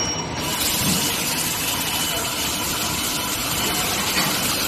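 Steady machinery noise from an induction heating furnace line for hot-forging bolt blanks, with a faint high steady whine.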